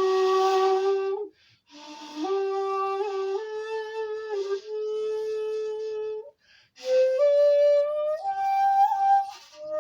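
Bamboo flute played in three slow phrases of long held notes, with breathy attacks. Each phrase steps upward in pitch, with a short pause for breath between phrases.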